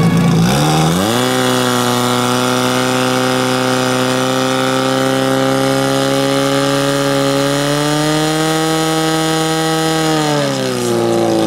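Portable fire pump's petrol engine revved hard and held at high speed, pumping water out to the hose lines. The engine climbs sharply in the first second, runs high and steady with a slight further rise, then its revs fall away near the end.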